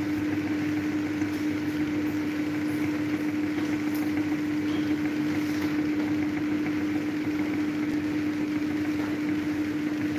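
Electric table fan running steadily: a constant hum on one steady pitch over an even rush of air.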